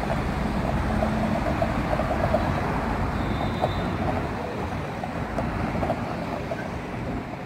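City street traffic: cars driving past close by, a steady rush of tyre and engine noise that eases off toward the end as they move away.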